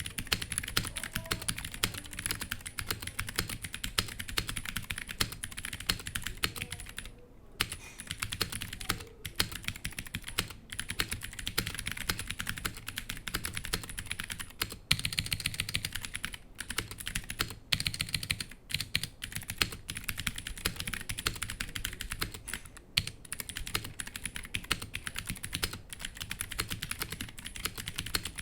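Continuous fast typing on a Womier HS-K87 mechanical keyboard with stock Gateron Blue clicky switches and stock keycaps: a dense stream of sharp key clicks, with a brief pause about seven seconds in.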